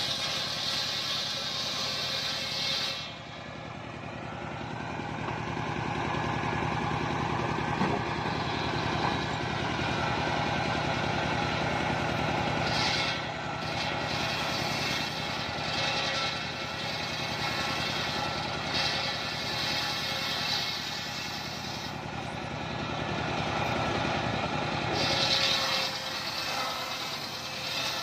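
Engine-driven circular saw blade of a homemade sawmill, with the engine running steadily while the blade rips mahogany boards. A high hiss of cutting rises over the engine at the start and returns in several passes through the second half.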